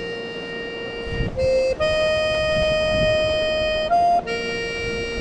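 Background music of slow, long held notes with a reedy, organ-like tone, changing pitch every second or two.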